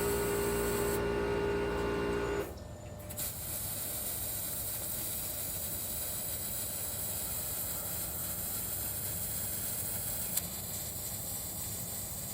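Steady machine hum with a strong tone that cuts off suddenly about two and a half seconds in, giving way to a steady hiss with a single sharp click near the end.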